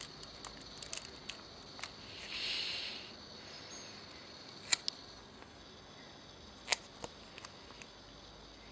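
Light clicks and taps of a small object being handled, with a soft rustle about two seconds in and two sharper clicks later on.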